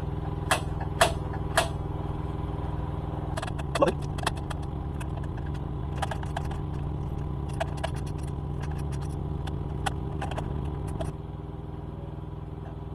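Metal clicks and clinks of hand tools working a nut on a motorcycle: three sharp knocks early, a cluster of clinks, then a run of quick small clicks, over a steady low hum that drops in level near the end.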